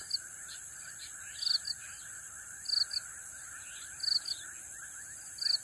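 Dusk chorus of insects and frogs: a steady high buzz and a lower rattling trill, with a short high chirp repeating about every 1.3 seconds.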